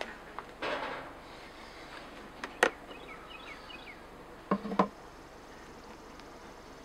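Wooden top bars of a top-bar hive knocking as they are loosened and handled: one sharp knock about two and a half seconds in and two more just before five seconds, over a faint buzz of honeybees. A short hiss comes about half a second in, and a few small bird chirps.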